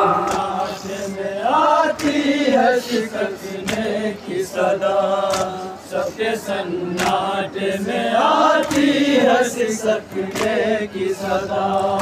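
A group of men chanting an Urdu noha (lament) together with drawn-out, wavering melodic lines, and sharp slaps of matam (mourners beating their chests) at a rough beat throughout.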